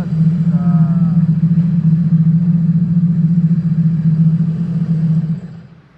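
Sea-Doo RXP-X 300's supercharged Rotax 1630 ACE three-cylinder engine running at a steady speed, then shutting off about five and a half seconds in. It is running on a replacement throttle body, with no check-engine fault showing.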